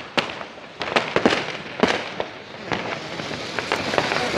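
Fireworks going off: a string of sharp bangs at uneven intervals over a continuous crackle and rumble of many more fireworks.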